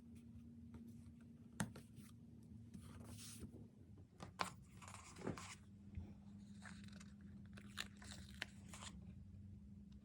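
Stickers and paper being handled for diary decorating: quiet crackly peeling and rustling in short spells, with a few sharp taps, over a faint steady hum.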